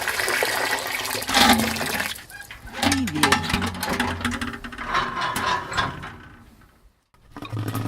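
Water pouring and splashing into a container, with gurgling. The sound fades to a moment of silence about seven seconds in, then pouring starts again.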